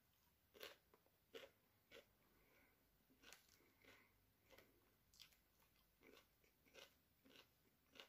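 A person chewing a mouthful of nam tok moo, grilled pork salad, with faint crunchy chews roughly every two-thirds of a second.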